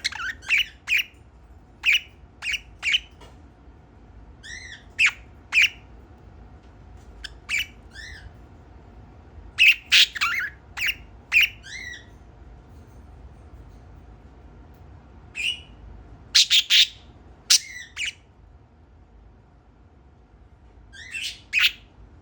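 Budgerigar chirping and squawking: short, sharp calls in quick clusters, with pauses of a few seconds between them.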